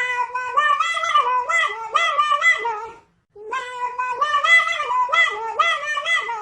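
High-pitched singing of a quick, bouncy melody in two similar phrases, with a short gap about three seconds in.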